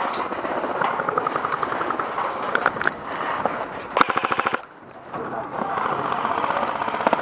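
Airsoft guns firing rapid automatic bursts of evenly spaced clicking shots. There are several bursts, and the loudest and longest, about half a second, comes about four seconds in.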